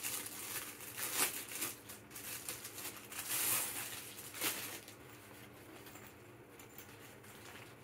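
Rustling and crinkling of packaging and a fabric lunchbox being handled and unwrapped, with a few sharp clicks; the handling noise is loudest around the middle and quieter after about five seconds.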